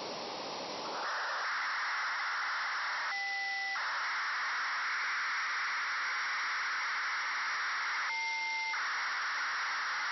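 Radio receiver audio of the FUNcube-1 (AO-73) satellite's BPSK telemetry downlink on the 2 m band: a steady static-like rushing that fills out and gets louder about a second in. Two short two-note tones cut in briefly, about three and eight seconds in.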